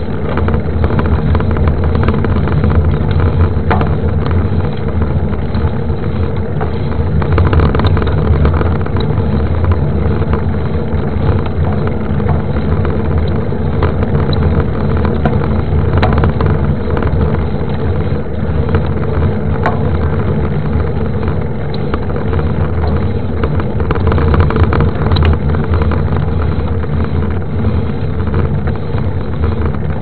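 Low, steady rumble of wind on the microphone and knobby mountain bike tyres rolling fast over asphalt and cobblestones, with a few small knocks and rattles from bumps.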